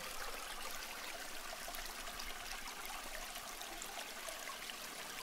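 Steady trickling water: an even hiss flecked with small drip-like ticks.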